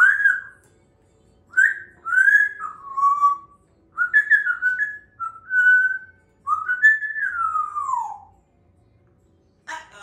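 African grey parrot whistling a string of short whistled phrases, sliding up and down in pitch, ending about eight seconds in with a long falling whistle.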